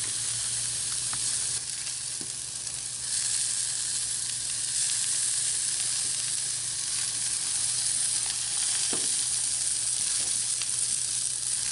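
Vegetable skewers sizzling on the hot cast iron grate of a charcoal-fired Lodge Sportsman's Grill, a steady crackling hiss that gets louder about three seconds in as squash skewers go on. A low steady hum runs underneath.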